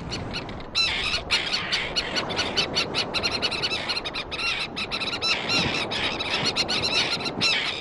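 A bird colony calling: many high, squealing calls overlapping in a dense, continuous chorus, picking up about a second in.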